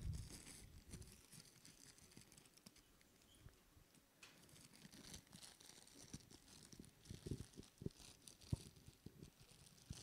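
Faint crinkling and rustling of a small paper-and-cloth wrapping handled and unwrapped by hand, with scattered soft clicks and a sharper tap about eight and a half seconds in.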